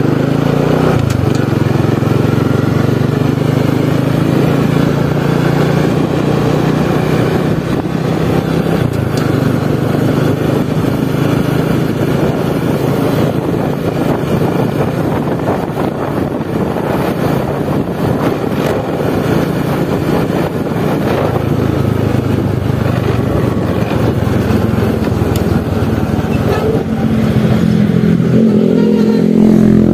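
Small automatic motor scooter's engine running steadily while riding along a road, with wind and road noise.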